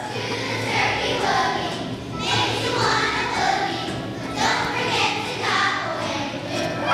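A choir of second-grade children singing together.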